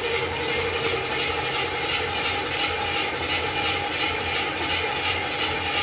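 1972 Buick Skylark engine running steadily, with a light regular ticking about three times a second over its hum, just after the new radiator has been filled with coolant.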